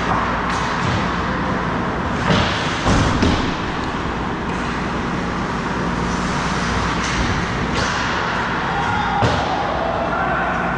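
Ice hockey play: a steady scraping hiss of skates on ice, broken by several sharp clacks of sticks and puck spread through.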